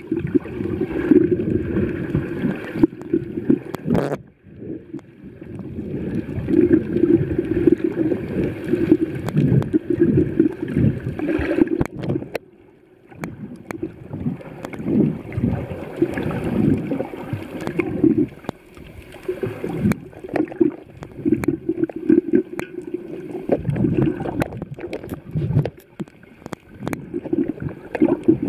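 Muffled water sloshing and gurgling around a snorkeler's underwater camera, swelling and falling unevenly, with brief lulls about four seconds in and around the middle.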